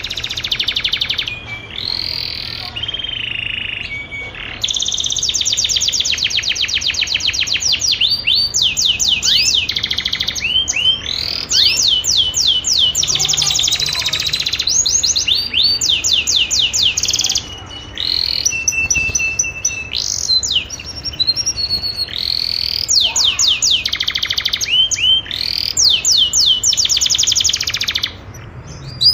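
Domestic canary singing: fast rolling trills and rapid runs of repeated chirps, phrase after phrase with short breaks, offered as the mating call of a female canary in breeding condition.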